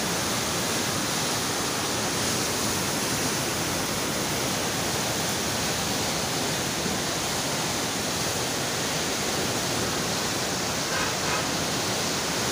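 The Neelum River in flood, its fast, churning muddy water rushing in a steady, unbroken wash of noise.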